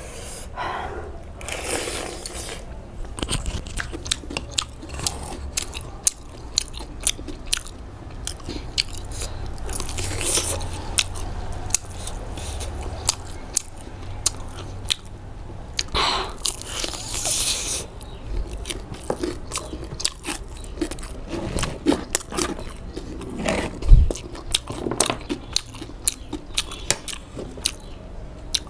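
Close-miked eating: biting, chewing and crunching food, with many small sharp mouth clicks and a few longer hissing bursts. A loud knock about 24 seconds in.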